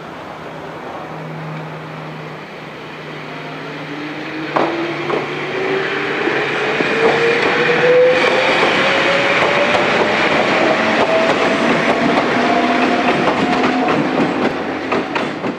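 Wakayama Electric Railway 2270-series 'Tama Densha' electric train pulling away. Its traction motors whine, rising steadily in pitch as it gathers speed, while its wheels click over rail joints. It gets louder as it passes close by.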